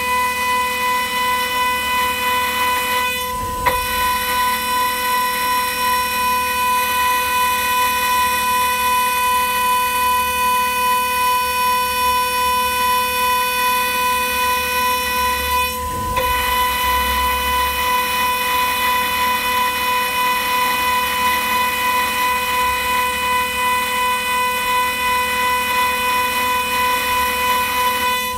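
Ringmaker CNC jewelry milling machine's high-speed vertical spindle whining steadily as a fine end mill cuts the sides of a ring blank. The whine breaks off briefly twice, about three and a half seconds in and again near sixteen seconds.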